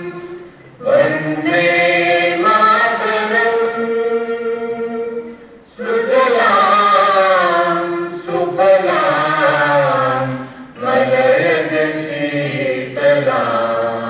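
A song being played: voices singing long, drawn-out phrases of about five seconds each, with short breaks between them.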